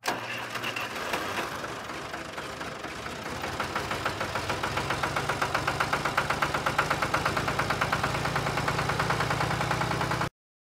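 Vintage tractor engine running with a regular beat that grows louder from about four seconds in, then cuts off suddenly near the end.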